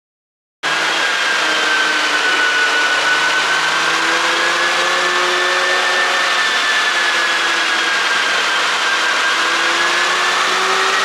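Porsche Cayenne Coupe engine running steadily after an ECU tune, cutting in suddenly about half a second in. It is a loud, hissy sound with a faint high whine that drifts slowly up and down in pitch. No exhaust pops are heard.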